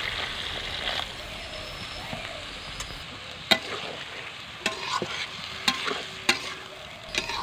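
Water poured into a hot karahi of spiced taro stolons and fried shrimp, sizzling. Then a metal spatula stirs the curry, with several sharp clicks and scrapes against the pan from about halfway through.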